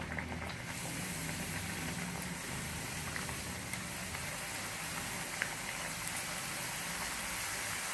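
Triangular moong dal dough chips deep-frying in hot oil on a medium flame: a steady bubbling sizzle. It grows fuller and brighter under a second in, as the chips go into the oil.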